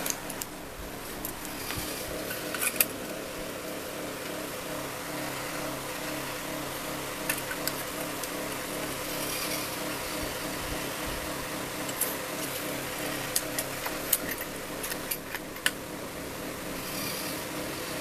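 Steady mechanical hum, like a fan or motor running in the room, with a few light clicks and clinks scattered through it as thin aluminium tart tins and a tape measure are handled, most of them in the second half.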